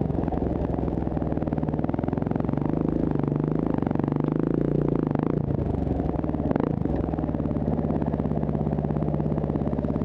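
Honda CRF150F dirt bike's single-cylinder four-stroke engine running at low speed, its pitch rising and falling a little around the middle as the throttle changes. There is a single knock about six and a half seconds in.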